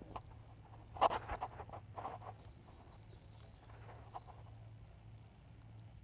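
Faint clicks and scratches of a plastic relay box and its jumper wires being handled, the clearest about one and two seconds in, over a low steady hum. The starter is not cranking.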